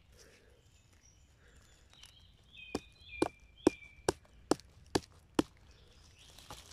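A series of seven sharp clicks, evenly spaced about half a second apart, starting a little under three seconds in, with faint thin high tones over the first few.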